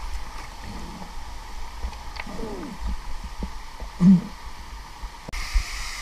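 River water sloshing and gurgling around an action camera riding at the water's surface, with low bubbling and one louder gurgle about four seconds in. Near the end it cuts abruptly to the steady rush of a waterfall.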